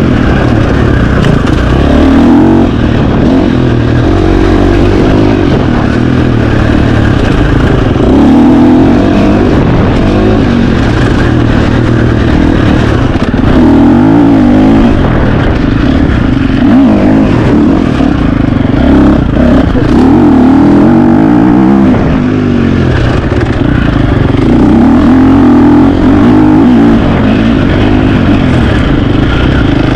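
KTM 350 XC-F dirt bike's single-cylinder four-stroke engine revving up and down continuously under throttle, its pitch rising and falling every second or two as the rider accelerates, backs off and shifts.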